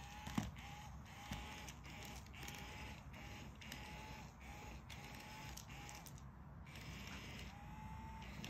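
Small electric motor of a battery-powered spinning cat toy whirring faintly, with a short whine and tick repeating about every half second as its wand turns. A sharp click about half a second in.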